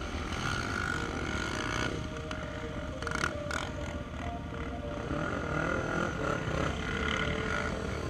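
Quad bike engines running close by, idling with some rising and falling revs from other quads on the sand.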